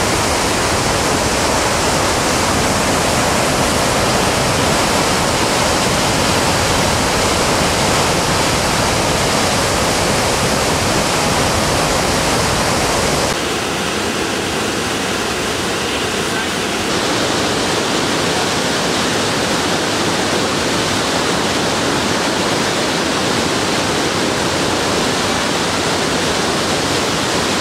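Steady roar of whitewater rapids on a large mountain river, the water churning over rocks close by. The sound changes in tone abruptly twice, around the middle.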